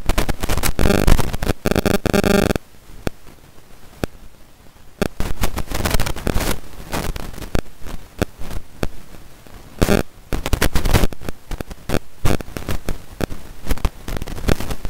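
Onion-tomato masala sizzling and crackling in hot oil in a non-stick pan while a steel spoon stirs and scrapes through it. The crackle eases off for a couple of seconds after about two and a half seconds, then picks up again.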